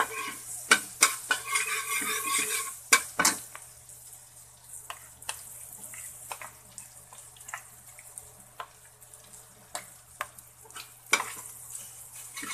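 Metal spatula scraping and tapping against a wok while salted egg yolks are stirred into sizzling melted margarine. The sizzle is strongest for the first three seconds, then dies down to quieter scrapes and sharp clicks of the spatula on the pan.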